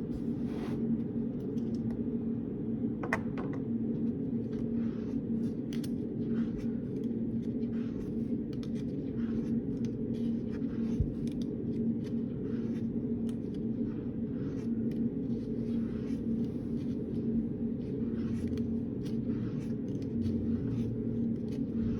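Steady low hum of a reading room, with a faint constant tone in it. Over it come frequent short, light scratches and taps of a pen writing on paper.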